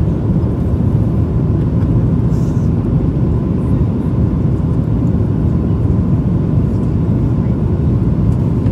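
Steady, loud cabin rumble of a Boeing 737-900ER on descent with flaps extended: its CFM56-7B engines and airflow over the wing heard from a window seat above the wing. A faint steady tone sits above the rumble.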